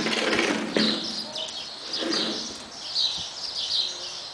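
Small birds chirping and twittering over and over in high, quick notes. A soft rush of lower noise rises in the first second and again about two seconds in.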